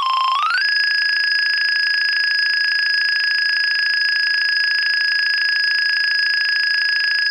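Nokia 2300 mobile phone ringtone playing a synthesized electronic tone. Just after the start the pitch glides down and back up, then it holds one steady high note.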